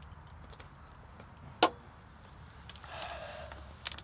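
Light handling sounds at a camp table: a single sharp click about a second and a half in, a brief rustle near three seconds, and a small knock near the end as an aluminium drink can is set down on the wooden tabletop.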